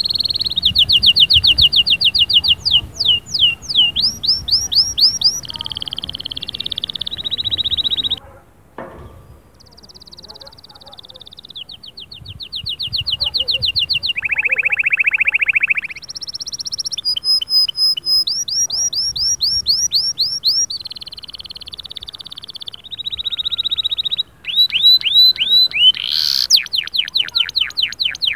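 Domestic canary singing a long song of rapid trills, each repeated note held for a second or two before the bird switches to the next: fast rolls, down-sweeping slurs and a lower buzzing roll. There is a short break about eight seconds in.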